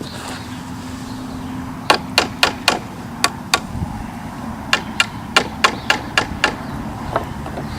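Hammer striking nails in a wooden pallet board, driving them back out: about fourteen sharp blows in three quick runs, with short pauses between.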